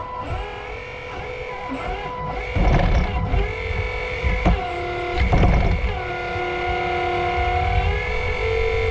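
Electric hydraulic pump of a 1/8-scale RC excavator whining steadily, its pitch shifting and holding as the hydraulics take load. It is mixed with a few knocks of the bucket working the dirt, in the middle of the clip.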